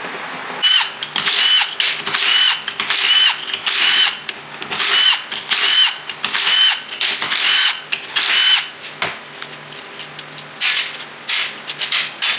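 Cordless impact wrench spinning the ring gear bolts out of a Dana 30 differential carrier, in a run of short bursts less than a second apart for about eight seconds, then a few shorter bursts near the end.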